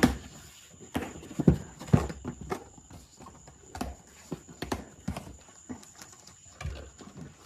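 Handling noise: irregular knocks, taps and clatter as the boxed fuel gauge and sending unit parts are picked up and unpacked. The sharpest knocks come at the very start and about one and a half to two seconds in.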